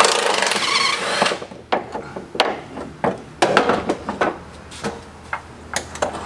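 A power tool runs for about a second, spinning off the 14 mm nuts on top of a Honda Civic's front strut, then a string of separate metal clicks and clanks as the tools and the freed strut are handled.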